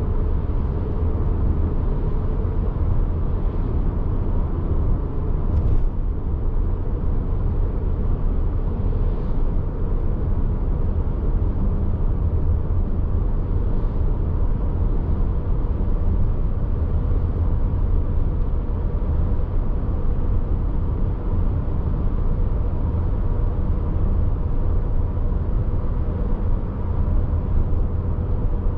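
Subaru Forester on the move: steady road and drivetrain rumble with a faint steady tone running above it.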